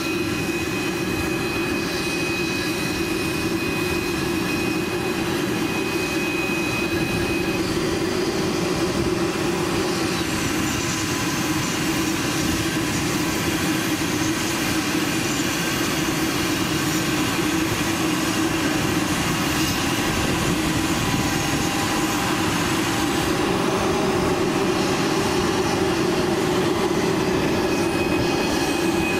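Twin-engine business jet taxiing at low power: a steady jet-engine whine over a rumble, growing slightly louder as it comes closer.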